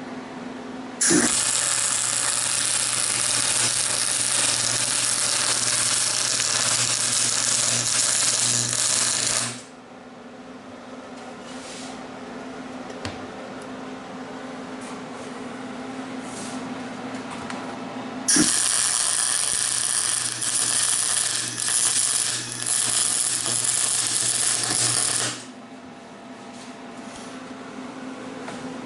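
Thermal Arc MIG welder laying two weld runs, each a steady arc sound lasting about eight and seven seconds that starts and stops abruptly. A steady low hum fills the pause between the runs.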